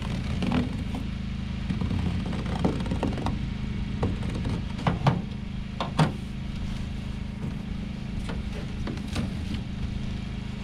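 Harbor Freight Predator 459cc single-cylinder engine running steadily during its break-in, with a scattering of sharp knocks and scrapes from a cardboard template being cut with a utility knife and moved about on a boat bench, the loudest about five and six seconds in.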